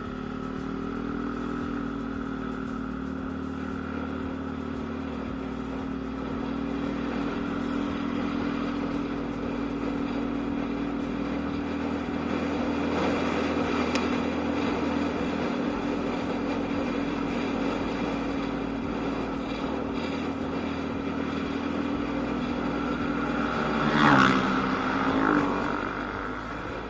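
Yamaha Aerox scooter engine running at a steady cruising note while being ridden. Near the end it swells louder, then drops sharply in pitch as the throttle closes and it slows.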